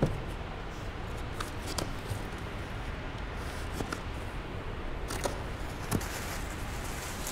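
A small machined aluminium block is set down on a cloth-covered table with a short knock at the start. After that come scattered light clicks and rustles of hands handling parts and packaging over a steady low background hum.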